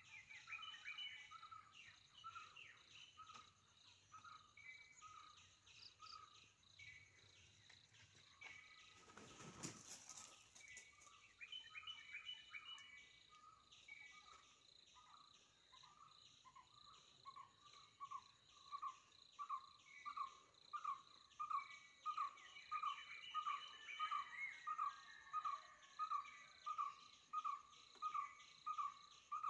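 Faint tropical forest ambience: insects buzzing and chirping with scattered bird calls, and a short noisy burst about ten seconds in. From about halfway a single repeated note, about two a second, grows louder and runs on.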